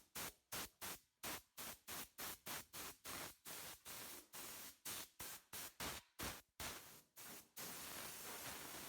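Rhythmic scraping strokes, about three a second, that stop about three-quarters of the way through and give way to a steady hiss.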